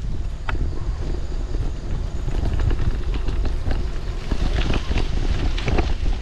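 Wind rumbling on the microphone of a camera carried on a moving bicycle, with scattered short knocks and rattles as the bike rolls over a rough, cracked road, more of them in the second half.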